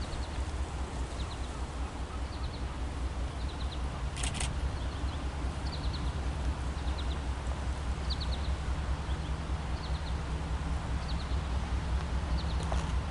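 A steady low rumble with a bird chirping in short triple notes about once a second, and one brief higher call about four seconds in.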